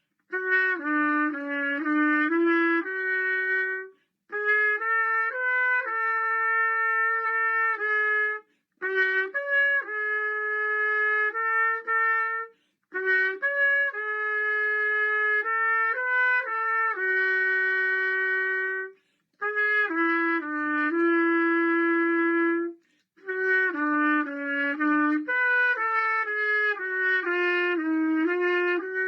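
Unaccompanied solo trumpet playing a slow melody in phrases of a few seconds, with short breath pauses between them.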